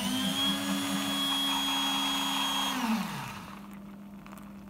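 Coffee vending machine's motor whirring steadily for about three seconds, then winding down with falling pitch; a quieter steady hum carries on as coffee runs into the mug.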